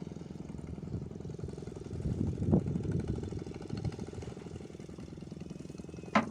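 A small engine idling steadily, with gusts of wind rumbling on the microphone about two seconds in and a sharp click near the end.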